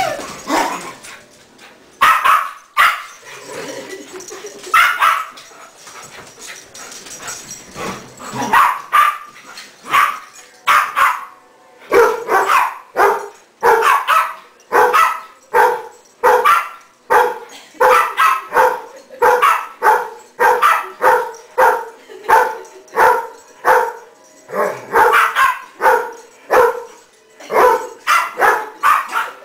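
A dog play-barking during a romp: short sharp barks, a few spaced out at first, then a quick run of about two barks a second from around the middle on.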